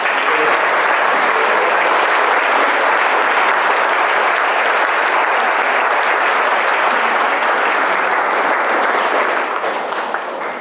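Audience applauding steadily in a hall, easing off slightly near the end.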